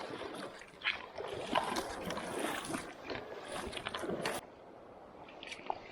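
Irregular sloshing and splashing of river water with small knocks, likely a wader moving through the water, cutting off abruptly about four seconds in to a faint hiss.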